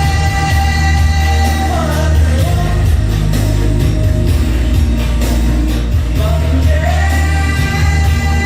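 A song with a singer holding long notes over heavy bass and drums, played loud through a Harman Kardon AVR-132 receiver and its speakers.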